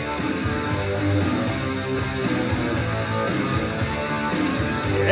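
Rock music playing: a guitar-driven instrumental stretch of the song, with no singing.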